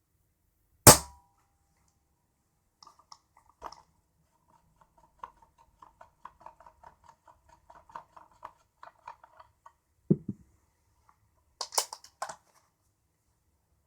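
Daystate Huntsman Classic .22 PCP air rifle dry-fired once, unloaded, about a second in: a single sharp crack with a brief metallic ring. Then a long run of faint rapid clicks from the rifle's magazine being fiddled with, and a few louder clicks and knocks near the end.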